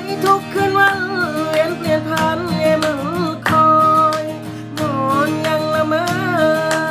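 Background music: a slow Thai song with acoustic guitar under a long, wavering melody line.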